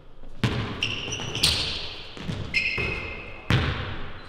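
A basketball dribbled on a hardwood gym floor, several sharp bounces ringing in the big hall, the loudest about a second and a half in, with sneakers squeaking twice on the court.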